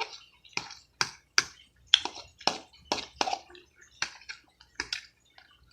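Wet smacking clicks of a mouth chewing food close to the microphone, about two a second, thinning out near the end.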